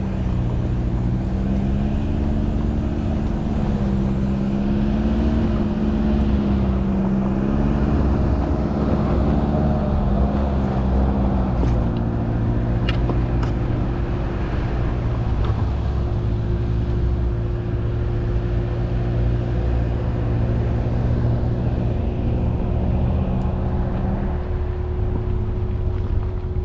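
Ford Bronco Sport's engine running at low revs as the SUV crawls along a rough dirt trail, with steady road and tyre noise underneath. The engine note wavers over the first third, then holds steady, and a few sharp ticks come about halfway through.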